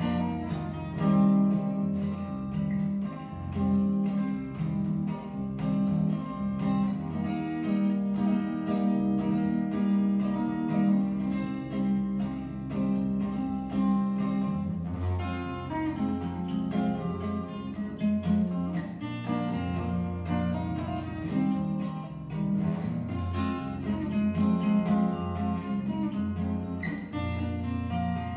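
Solo acoustic guitar playing an instrumental, with the melody picked note by note over steady bass notes, without a break.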